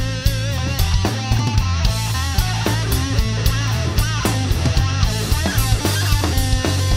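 Live experimental rock band: electric guitar playing a lead line with bending, wavering notes over bass guitar and drum kit.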